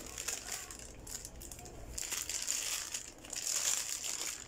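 Clear plastic wrapping crinkling as hands handle and unwrap a microphone. The rustling comes in irregular spells and is louder in the second half.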